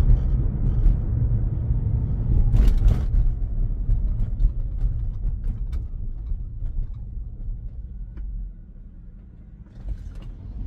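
Tyre and road noise heard inside the cabin of a Tesla electric car. It fades as the car slows and is lowest about eight seconds in, when the car is almost stopped, then rises again as it pulls away. There is a brief rushing sound about three seconds in.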